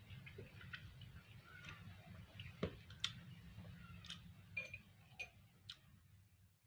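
Faint, irregular clicks and small taps over a low steady hum, the two loudest clicks about two and a half and three seconds in.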